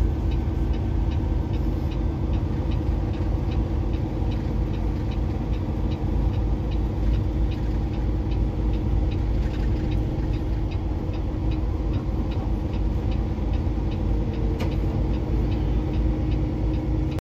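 Steady engine and road noise inside a semi-truck's cab while driving, a constant low drone with a hum, and a light ticking about twice a second throughout.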